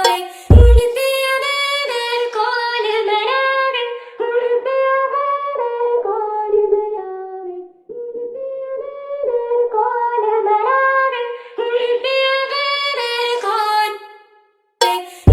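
Music: a bass-free interlude of a melodic, singing-like line that steps between held notes, in two phrases. A heavy bass beat hits once about half a second in and drops back in near the end.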